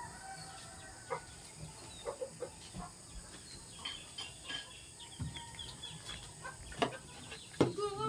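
Backyard chickens clucking, with scattered light knocks and a couple of louder knocks near the end.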